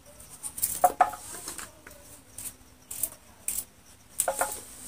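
Peeled taro root being sliced by hand with a knife, the slices dropping onto a steel plate with irregular taps and clinks. The loudest clinks come about a second in and again a little after four seconds, each ringing briefly.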